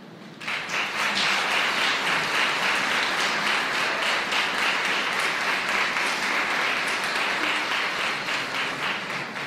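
Audience applauding: dense clapping breaks out about half a second in, holds steady, and begins to fade near the end.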